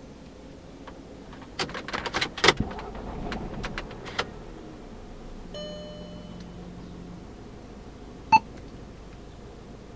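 A cluster of clicks and knocks as the car's push-button engine start/stop switch is pressed, followed by a short electronic chime. Near the end comes a single sharp tap with a brief beep as the touchscreen head unit is touched.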